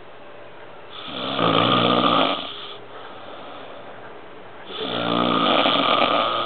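Hearty snoring: two long snores, each lasting a second and a half or more, nearly four seconds apart, with quieter breathing in between.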